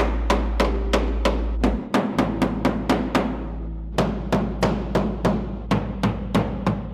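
Rapid hammer blows on sheet metal, about three a second, pausing briefly partway through, over background music.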